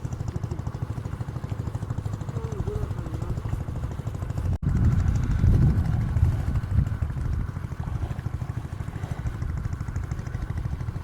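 A small engine running steadily with a rapid, even pulse. It breaks off sharply about four and a half seconds in and comes back louder for a couple of seconds.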